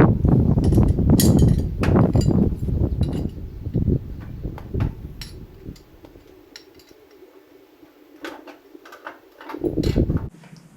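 Metal clinks and knocks of tools and brass air fittings being handled while a glad hand is fitted, over low rumbling handling noise that eases off about halfway through.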